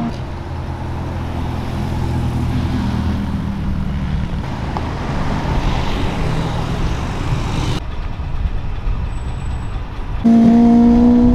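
Car engines running at low revs with a steady low rumble; near the end a loud engine note starts suddenly and is held at high revs.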